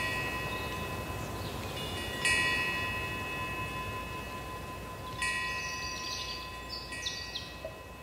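Korean temple wind bell (pungyeong) hanging from the eaves, swung by the wind and ringing about four times, each strike a cluster of high bell tones that fades slowly.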